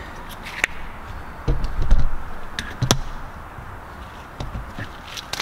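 Light clicks and taps of small metal engine parts being handled, with a few dull knocks, the loudest about two and three seconds in.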